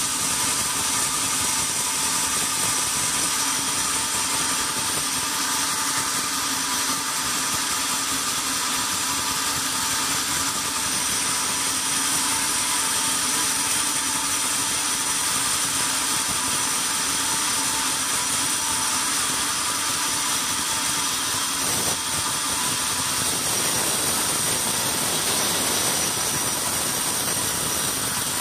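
Carriage band sawmill running with a steady whine. About three-quarters of the way through, the sound thickens as the blade starts cutting into the log.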